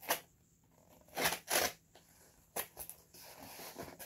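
Packing tape on a cardboard shipping box being slit and ripped open, several short ripping strokes, then a softer rustle of the cardboard flaps over the last second.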